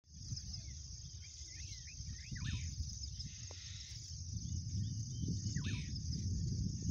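Insects buzzing steadily at a high pitch, with short bird chirps now and then, over a low, uneven rumble.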